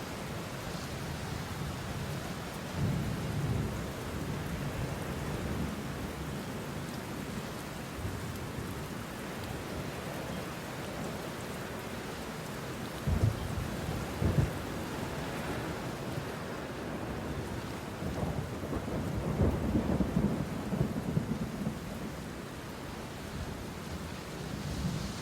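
Deep rumbling booms over a steady hiss. One rumble comes a few seconds in, two short, sharper booms follow about halfway through, and a longer rolling rumble comes later.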